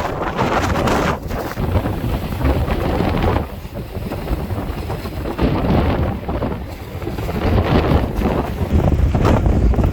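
Strong gusty wind buffeting the microphone as a low, rushing rumble that rises and falls with the gusts. It eases off about a third of the way in and builds back up in the second half.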